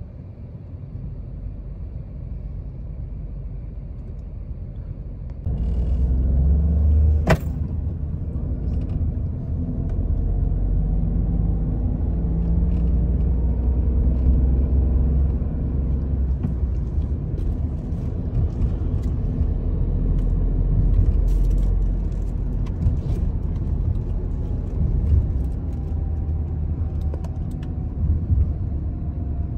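Car driving through city streets: a continuous low rumble of engine and tyres on the paving, growing louder about five seconds in. A sharp click comes a couple of seconds later.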